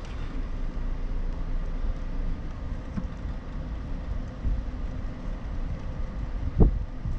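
Steady low rumble of a car moving slowly along a road, with wind on the microphone, and a single thump about six and a half seconds in.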